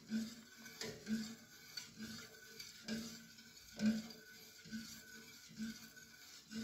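A long metal utensil stirring liquid chocolate pudding mixture in a stainless steel pot, faintly scraping and swishing against the pot about once a second.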